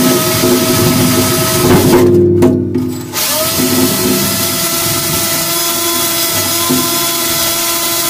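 Cordless Milwaukee drill spinning a wire cup brush against a rusted bolt, scrubbing rust and dirt off it with a steady motor whir and a scraping hiss. It stops about two seconds in and spins back up about a second later.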